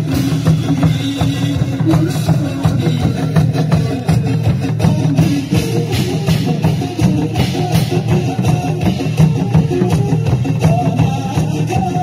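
Dance music with a drum kit keeping a steady beat.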